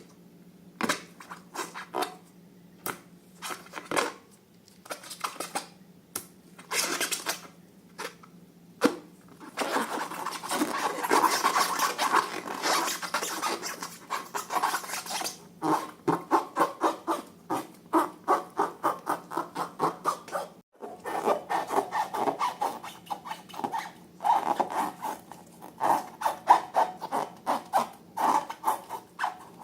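Hands working sticky slime and balloons: rapid wet, sticky clicks and rubbing, denser for a few seconds in the middle. A faint steady hum stops suddenly about two-thirds through.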